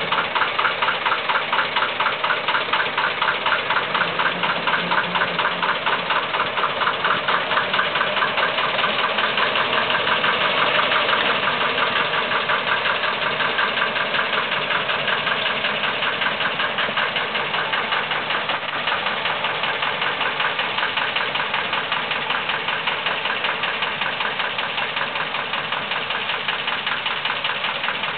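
Small narrow-gauge diesel locomotive's engine chugging in a steady, even pulse as it runs along the track, growing a little fainter in the second half as it moves away.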